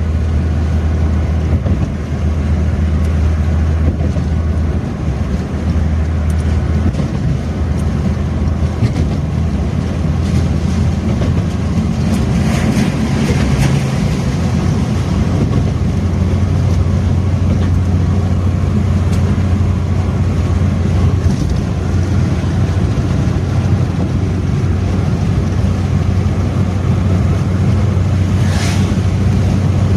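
Suzuki Karimun Kotak cruising: a steady low drone of engine and road noise with a haze of tyre and wind noise. Two brief swells of rushing noise come about twelve seconds in and again near the end.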